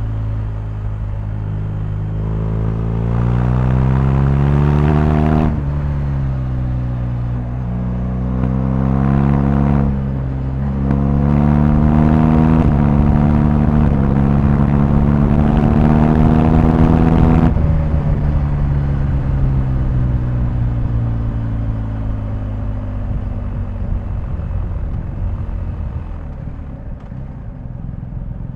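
BMW R1250GS boxer-twin engine accelerating through the gears: the revs climb and drop sharply at each of several upshifts. After about 17 seconds the throttle closes and the revs fall slowly as the bike coasts on engine braking.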